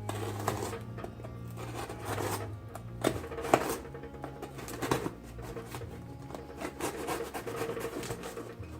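Kershaw pocket knife cutting and scraping through packing tape and cardboard, with irregular rubbing and scratching and a few sharp clicks, the loudest about three and a half seconds in.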